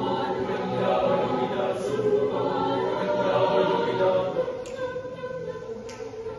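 Mixed choir singing a cappella, holding sustained chords, then growing softer about two-thirds of the way through.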